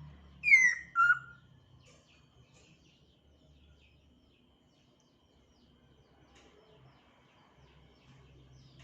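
African grey parrot giving two loud, short whistles about half a second apart, each sliding down in pitch, followed by a few faint chirps.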